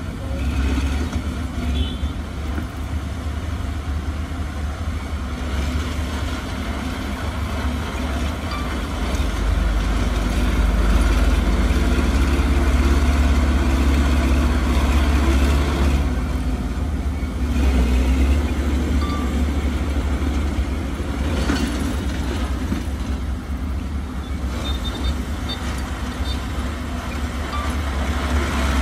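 Heavy diesel earthmoving machinery running with a steady low engine sound, growing louder for several seconds in the middle.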